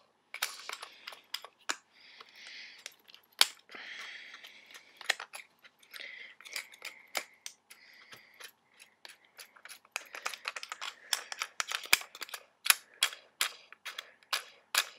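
Small plastic and metal clicks and scraping as a Sony A700 vertical grip's mounting screw is turned by hand into the camera's base. Scratchy rubbing in the first half, then the clicks come quicker, several a second, over the last few seconds.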